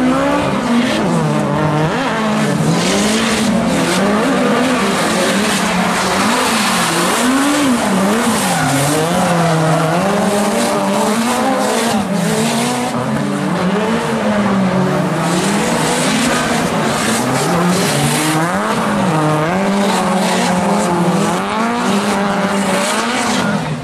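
Drift cars' engines revving hard, their pitch swinging up and down about once a second as the throttle is worked through the slides, over continuous tyre squeal and skidding.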